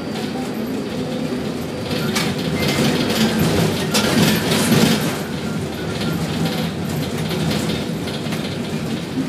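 Container gantry crane machinery running with a steady motor hum, and metal clattering and clanking that is loudest from about two to five seconds in.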